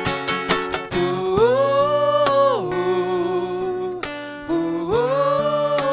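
Live acoustic band music: a male singer holds two long wordless notes, each rising and then falling away, over strummed acoustic guitar.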